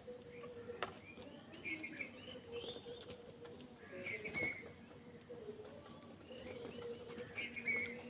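House crows and common mynas calling around a feeding tub: short calls about two seconds in, again about four seconds in and near the end, with a couple of sharp taps and a faint low wavering tone underneath.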